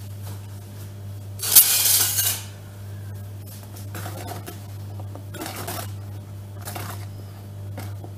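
Wooden spoon scraping and knocking against a bowl while stirring flour into cake batter. The loudest scrape comes about a second and a half in, followed by a few softer ones.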